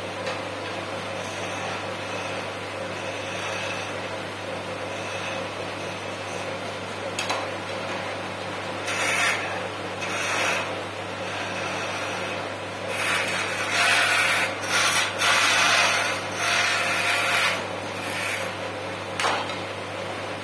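Wood lathe running with a steady hum while a hand-held turning tool cuts the spinning wooden blank. The cutting noise comes and goes in bursts and is loudest through the second half.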